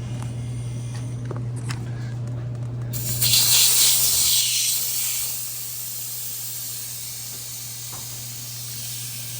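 Leak-test pressure being vented from a refrigerator's sealed system: a sudden loud hiss of escaping gas about three seconds in that slowly tapers off, over a steady low hum.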